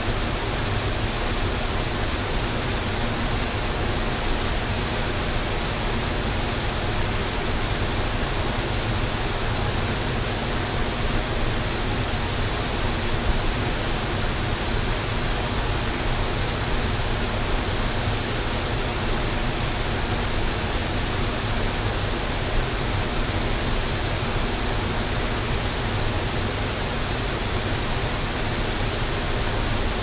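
Waterfall pouring over a dam crest: a steady, unbroken rush of falling water.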